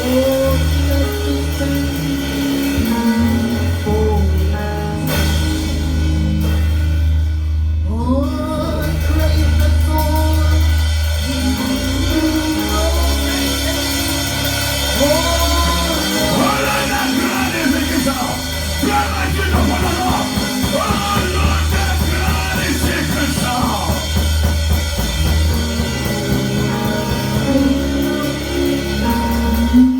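Live worship band playing, with a heavy bass and drum kit, and singing over the middle of the passage.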